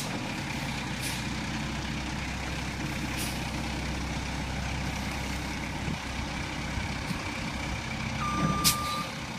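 Roll-off truck's diesel engine running steadily, with short air hisses from its brakes about one and three seconds in. Near the end the backup alarm starts beeping and another sharp air hiss sounds.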